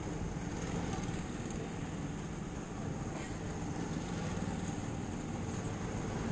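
Four-stroke go-kart engine idling steadily.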